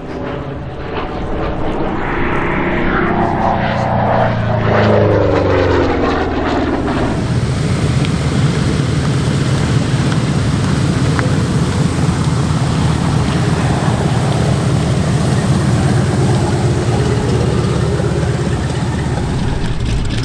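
Propeller aircraft flying past: its engine note falls in pitch over the first few seconds, then gives way to a loud, steady engine drone that holds until near the end.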